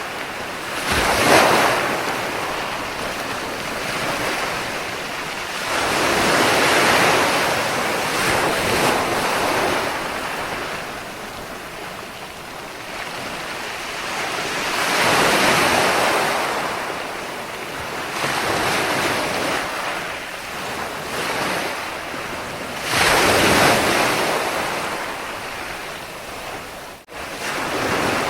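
Ocean waves breaking on a shore, surging four times and washing back between, with a brief dropout near the end.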